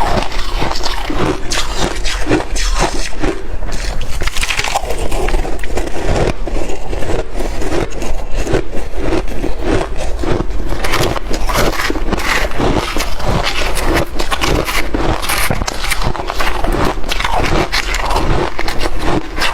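Freezer frost crunching close to the microphone as it is chewed: a dense, continuous run of crisp crackles and crunches.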